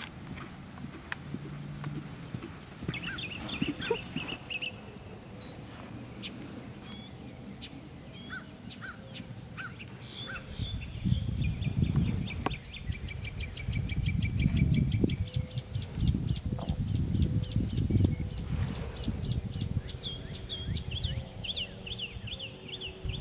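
Birds chirping and calling, including a long, fast run of evenly repeated high notes in the middle. From about halfway through, an irregular low rumble of wind on the microphone grows louder under the birdsong.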